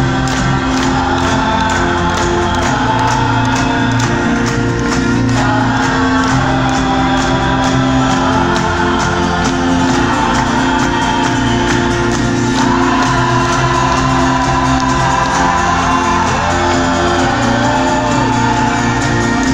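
Live folk-rock band playing in an arena, heard from high in the seats: sung vocals over the full band with a steady drumbeat.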